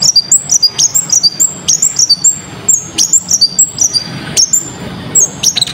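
A konin (kolibri ninja) sunbird singing a fast run of sharp, high chirps and short whistled notes, several a second, over a faint low hum.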